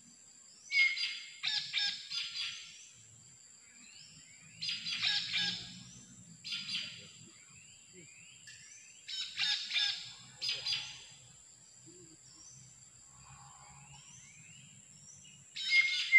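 Jalak (starling) calls: about six loud, harsh chattering bursts, each up to a second long. Between them come short rising chirps repeated about once a second, over a steady high-pitched tone.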